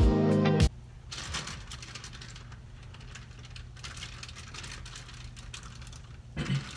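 Background music with guitar cuts off about half a second in. What follows is quiet room tone: a steady low hum with scattered light clicks and rustles.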